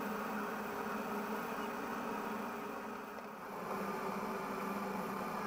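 Vehicle engine running steadily, an even hum that dips slightly a little past halfway.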